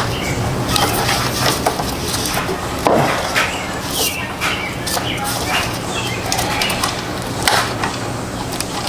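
Scattered sharp clicks and clinks of hand tools on metal as a stubborn engine bolt is worked loose, with birds calling in the background and a steady low hum.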